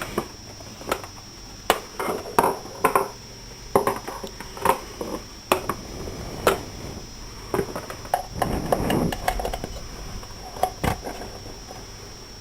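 Irregular clicks and knocks of audio leads and jack plugs being handled and swapped, with a rustle of cable handling about 9 seconds in. A steady high-pitched whine runs underneath: the background noise the Scarlett 2i2 interface setup is picking up.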